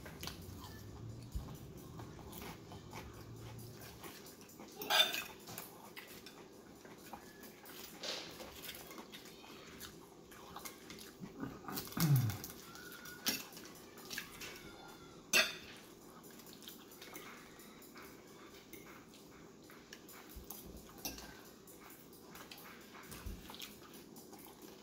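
A metal fork clinks and scrapes on a ceramic plate, with chewing and crunching of crinkle-cut potato chips, as sharp clicks spaced a few seconds apart. A short low sound falls in pitch about halfway through.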